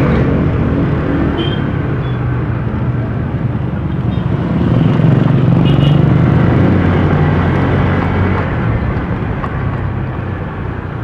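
Honda Click automatic scooter under way: its small engine running steadily under wind and road noise, growing louder about halfway through and then easing off.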